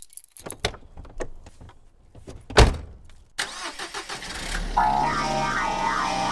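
Irregular clicks and knocks with one heavy thump near the middle, then a rising whoosh that leads into music starting about five seconds in.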